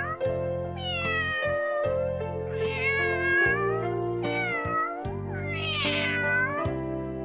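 A cat meowing about four times, each call bending in pitch, over soft piano background music.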